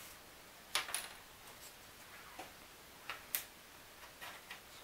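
Light clicks and taps of thin laser-cut wooden kit pieces being handled and fitted together in the hands: a pair of sharp clicks about a second in, another pair about three seconds in, and fainter ticks between.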